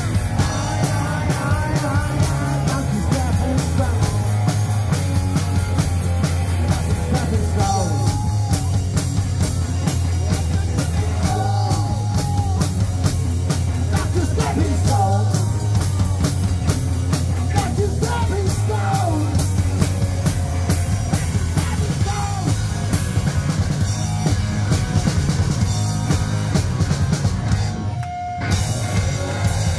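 Live punk rock band playing loud: distorted electric guitars, bass and a drum kit pounding out a fast, steady beat. The band drops out for a moment near the end, then crashes back in.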